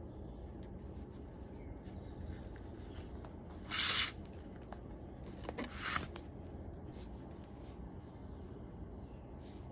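Stitching thread pulled hard through the awl holes while hand-sewing the welt of a leather boot: two short hissing zips, the second about two seconds after the first, with soft rubbing and small clicks of thread and leather between.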